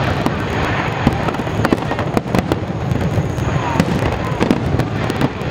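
Aerial firework shells bursting in a dense barrage: many sharp bangs overlapping every second over a continuous low rumble.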